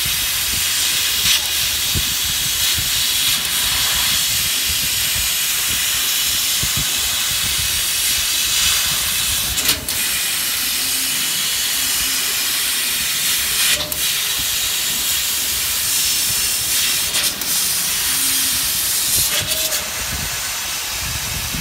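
Laser cutting machine running as it cuts shapes out of a vinyl record: a loud, steady hiss of assist air blowing through the cutting nozzle, with a few brief breaks.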